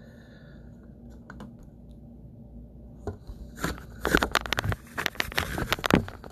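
A phone being handled close to its own microphone: from about three seconds in, a quick run of clicks, taps and rubbing, over a low steady hum.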